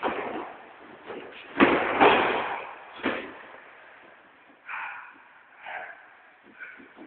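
Heavy thuds of bodies slamming onto a wrestling mat, the loudest pair a bit under two seconds in and another about a second later, followed by a few shorter, fainter higher sounds.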